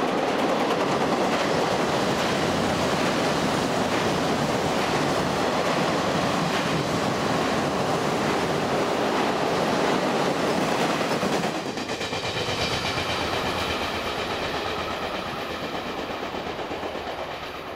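A twelve-car JR 583 series electric multiple unit passes at speed: a steady rumble of wheels with clickety-clack over the rail joints. About two-thirds of the way through the last car goes by, the noise drops, and the train fades away leaving a thin high tone.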